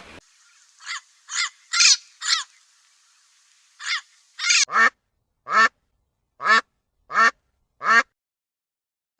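Macaw squawking: a series of about ten short, harsh calls with gaps between them, the first few thinner and higher, the later ones louder and fuller.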